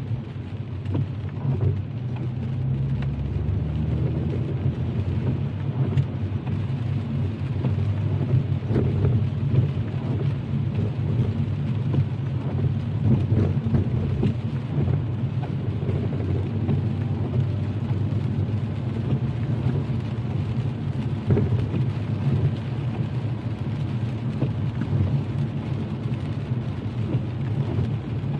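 Car driving in steady rain: a steady low road and engine rumble, with many small raindrop ticks striking the car.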